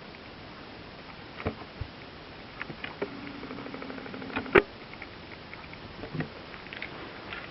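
Scattered faint clicks and taps. About three seconds in, a low steady hum sounds for about a second and a half and ends with a sharp, louder click.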